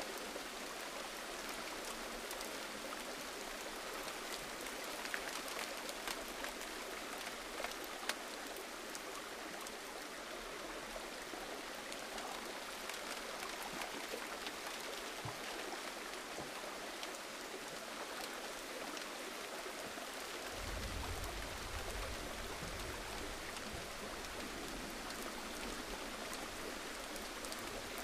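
Steady rain, with scattered individual drops ticking through an even hiss. About two-thirds of the way in a low rumble rises underneath and carries on.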